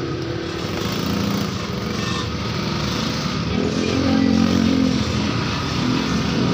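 An engine running steadily, its pitch wavering slightly.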